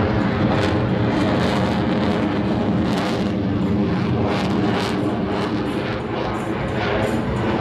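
Military fighter jet's engine noise, steady and loud, with a crackle running through it.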